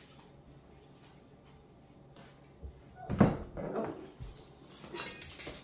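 Kitchen handling noises: a single clunk about three seconds in, the loudest sound, followed by smaller knocks and a short rustle near the end.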